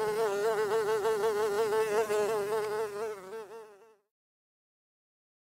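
A fly buzzing steadily, its pitch wavering quickly up and down, until it stops about four seconds in.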